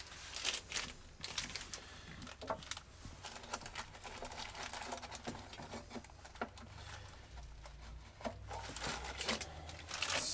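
Packaging and small parts being handled while a wood stove's box is unpacked: irregular light clicks and taps with crinkling rustles.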